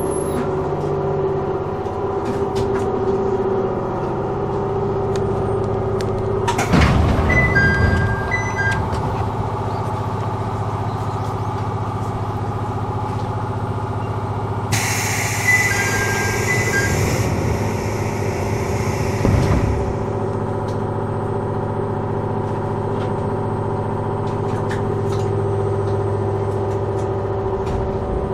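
Chichibu Railway electric train, heard from the cab, with a steady electrical hum. About seven seconds in there is a loud burst of compressed air, and from about fifteen to twenty seconds a longer hiss of air. Each comes with short two-note beeps.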